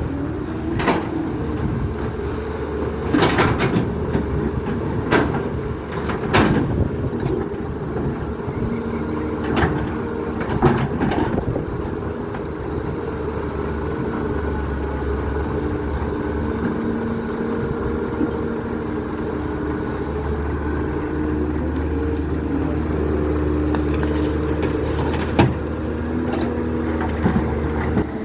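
Excavator's diesel engine running steadily under load, its pitch shifting a little, with sharp metallic knocks and clanks from the bucket and arm working, most of them in the first half.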